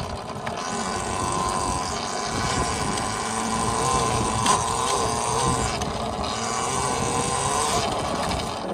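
2022 Volcon Grunt electric off-road motorcycle picking up speed to about 30 mph, then running steadily: a high electric-motor whine over tyre and wind noise, easing off slightly near the end.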